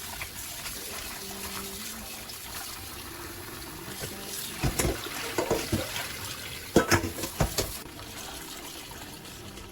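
Kitchen tap running steadily into a sink, with a cluster of knocks and clatters about halfway through as things are handled in the water.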